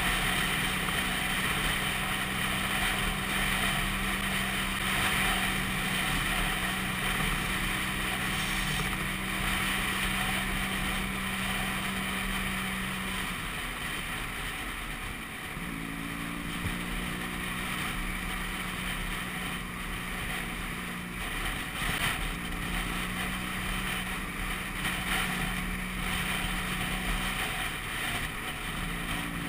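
Vespa PX 200's single-cylinder two-stroke engine running at a steady cruising note while riding, with wind rushing over the microphone. The engine note breaks off briefly about halfway through and twice more later, picking up again each time.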